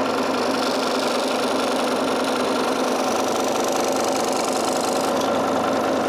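Craftsman scroll saw running steadily, its blade cutting a display hole through a plastic project-box cover.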